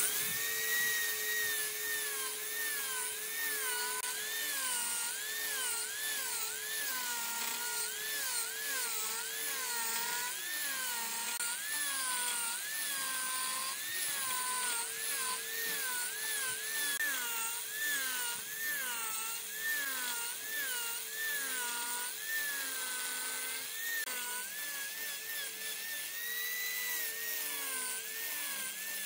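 High-pitched power tool whine whose pitch wobbles up and down about twice a second, over a steadier lower hum.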